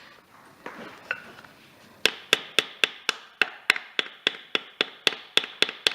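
Light hammer taps driving a Porsche 987 Tiptronic transmission's torque converter (pump) seal into its bore, a couple of faint knocks and then a quick, even run of taps, about four a second, starting about two seconds in. The taps are seating the lower edge of the seal so it sits flush all the way around.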